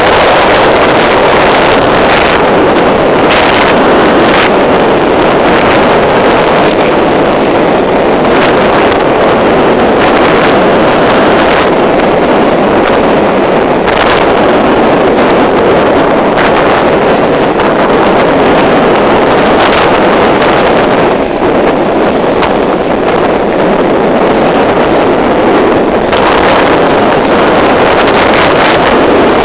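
Loud, steady rush of wind buffeting the microphone aboard a sailing boat, with gusts flaring up every few seconds.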